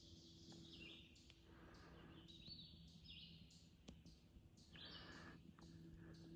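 Faint woodland birds calling in short, repeated chirps, with soft scuffing steps on the trail about once a second.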